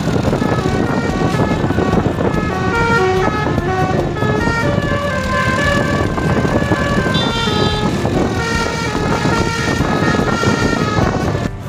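Basuri telolet horn on a tour bus playing a quick tune of short stepped notes over steady road and engine noise. The tune starts about a second in and cuts off just before the end.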